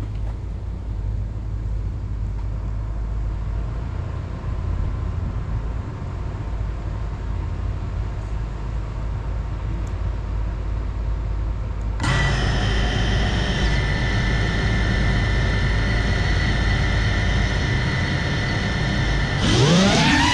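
A low steady rumble, then about twelve seconds in an FPV quadcopter's motors spin up to a steady whine of several tones at idle. Near the end the throttle comes up for take-off and the whine jumps louder and swoops in pitch.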